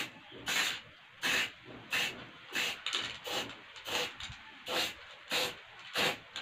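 Aerosol spray paint can spraying in about ten short hissing bursts, roughly one and a half a second, as a patched plastic scooter fender is spray-painted in quick passes.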